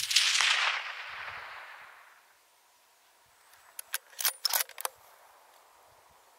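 A hunting rifle shot at the very start, its report echoing and rolling away over the hillside for about two seconds. About four seconds in comes a quick run of five or six sharp clicks.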